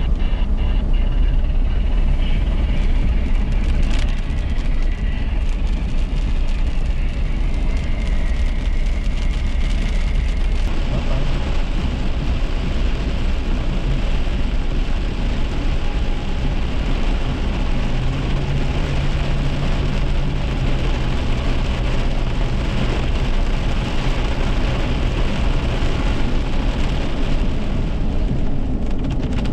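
Car driving on a wet road in rain, heard from inside the cabin: steady tyre, road and rain noise over a heavy low rumble. A steady low hum joins about eighteen seconds in and fades near the end.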